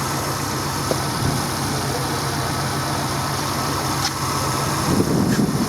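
A 16-valve Lada 2112 four-cylinder engine idling steadily and quietly while it warms up after starting.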